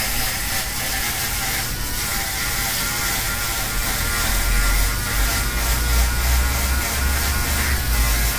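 Electric shaver buzzing steadily as it is run over a closely shaved scalp to take the hair down to the skin. Its low hum grows stronger from about halfway through.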